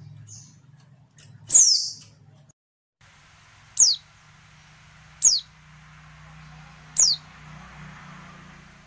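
Female white-eye (pleci) calling: four short, thin, high notes, each sliding sharply downward, spaced about a second and a half apart, the first the longest and loudest. This is the female's call that draws males into answering. A faint low hum lies underneath.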